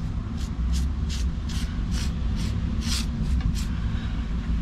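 Paintbrush stippling paint into a gravel non-slip patch: a run of short scratchy strokes, about two or three a second, that stop near the end, over a steady low rumble.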